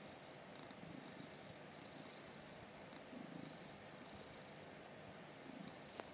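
Domestic cat purring faintly as its head is stroked.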